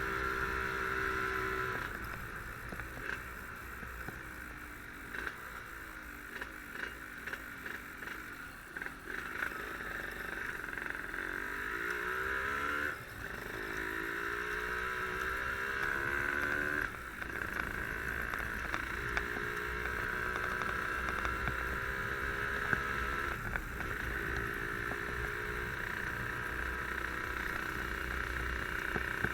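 Yamaha RD135 two-stroke single-cylinder motorcycle engine pulling under load while riding. Its pitch climbs and then drops sharply about 13 and 17 seconds in as gears are changed, over steady wind and road noise.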